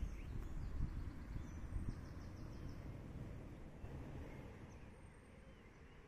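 Outdoor ambience: a low rumble of wind on the microphone, loudest in the first couple of seconds and easing off, with a few faint bird chirps about two seconds in.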